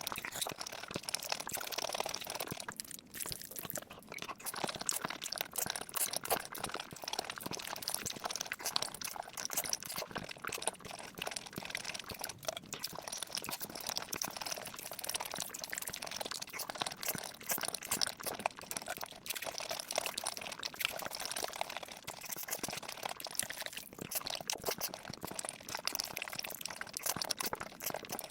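Close-miked mukbang eating sounds: chewing with a dense, continuous run of small mouth clicks and crunches, briefly easing off about three seconds in.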